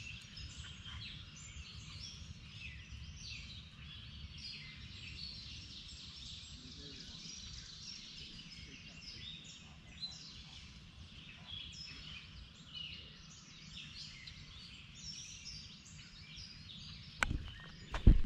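Outdoor morning birdsong: many birds chirping and singing at once, over a low steady rumble. A few sharp knocks come near the end.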